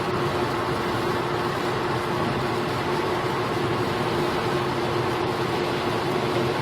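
A steady, unchanging droning hum with one constant low tone over a wash of noise, one of the unexplained 'strange sounds' recorded from the sky.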